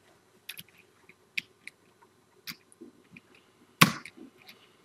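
Computer mouse and desk clicks: a few faint clicks and taps, then one sharp, louder click near the end, as a slide animation is advanced.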